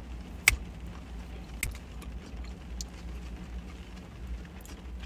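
A fork clicking against a takeaway bowl while she eats, sharpest about half a second in and fainter twice later, over a low steady rumble inside a car.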